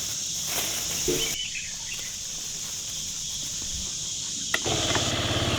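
Insects droning steadily in a high, even pitch. A click comes near the end, followed by a low buzzing hum.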